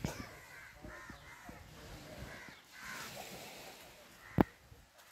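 Crows cawing on and off in short, harsh calls. A single sharp knock about four seconds in is the loudest sound.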